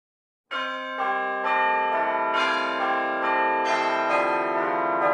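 Church bells rung in a sequence of different notes, a new bell struck about every half second and each ringing on under the next. They start about half a second in, after silence.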